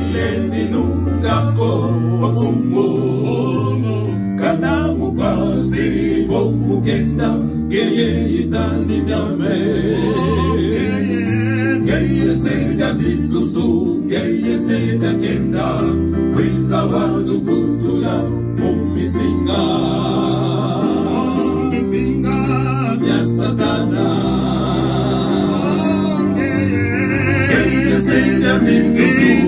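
Gospel song performed live: several voices singing together over an electronic keyboard accompaniment.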